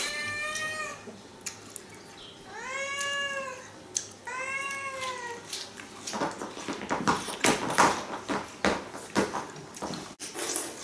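A domestic cat meowing three times, short rising-and-falling meows, as it begs for the watermelon being eaten. A few seconds of irregular crackling and clicking noise follow.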